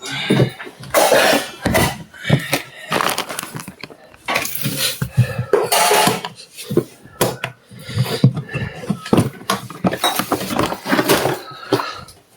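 Rummaging through a suitcase by hand: irregular clattering, knocking and rustling as things are moved about in the search for a paper receipt.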